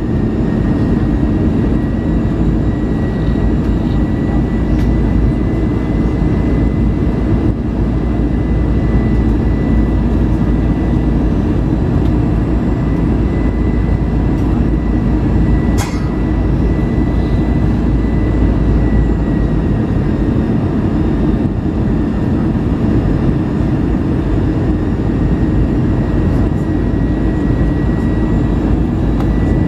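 Airbus A320 cabin noise on approach: the steady rush of airflow and engines heard from a window seat, with a thin, steady whine above it. A single sharp click sounds about halfway through.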